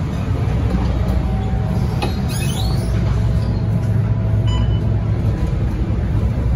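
Scania K230UB single-decker bus's five-cylinder diesel running steadily at low revs, a low rumble heard from inside the cabin. A few brief high squeaks come about two seconds in, and a short high tone comes about four and a half seconds in.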